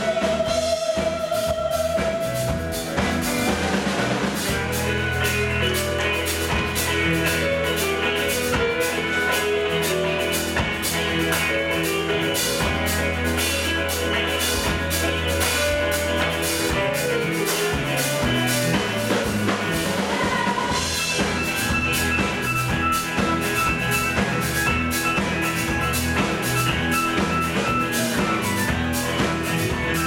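A live folk-rock band playing a mostly instrumental passage: banjo, acoustic and electric guitars over a steady drum-kit beat.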